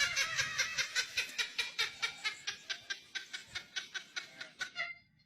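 A person laughing in a long run of rapid, even chuckles, about five or six a second, that slowly fade and cut off near the end.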